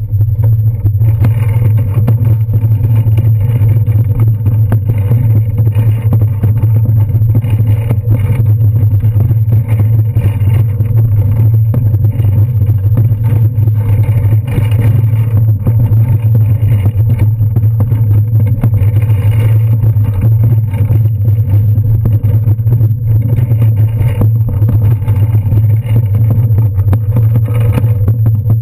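Loud, steady low rumble of a bicycle rolling over brick paving, the jolts carried straight through the handlebar camera mount, with some wind on the microphone.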